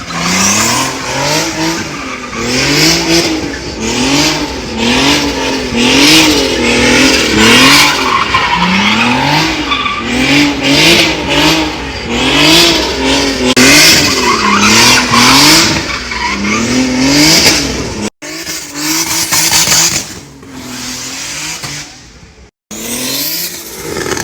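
The turbocharged engine of a drifting BMW E46, which the owner believes is a 2JZ straight-six swap, is revved up and down about once a second as the throttle is pumped, with the tyres squealing throughout. The sound drops out briefly twice near the end.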